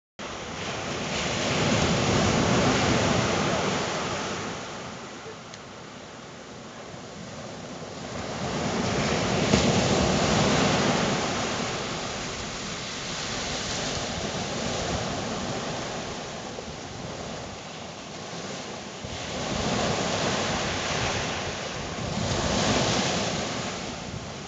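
Surf breaking on a beach under a gusty storm wind, with wind buffeting the microphone; the rushing noise swells and eases over several seconds at a time.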